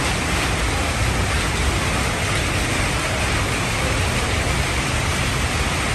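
Fabric foil printing machine running: a steady, even noise with no distinct rhythm, tone or knocks.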